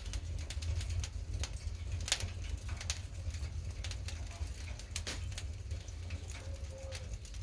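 Wood fire burning: irregular crackles and pops from the logs over a low, steady rumble of the flames.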